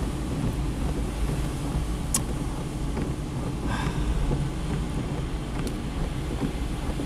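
Inside a Fiat Panda 900ie driving on a rain-soaked road: steady engine and road noise with tyre spray. About four seconds in, the windscreen wipers make a brief sweep across the wet glass, and there are a couple of short clicks.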